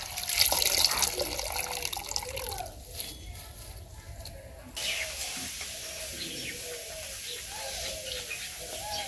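Water splashing and sloshing in a plastic bucket as leafy greens are rinsed by hand, with small clicks of handling. About halfway through it changes suddenly to a quieter, steady outdoor background with faint wavering calls.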